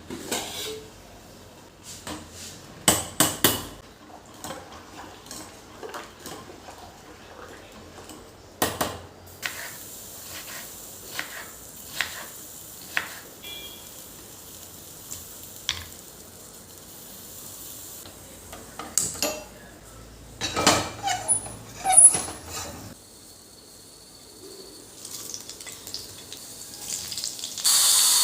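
Metal kitchen utensils and pots clattering and clinking in irregular knocks during cooking, over a faint steady sizzle. Near the end a tap starts running loudly.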